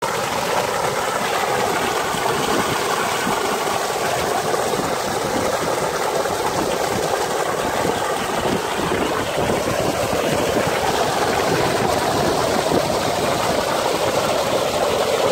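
Well water from a drinking-water borehole gushing out of the pump's large discharge pipe and splashing onto the ground: a steady rushing sound.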